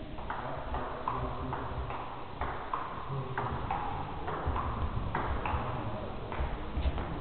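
Table tennis rally: the ball clicking off the bats and the table in turn, about two hits a second.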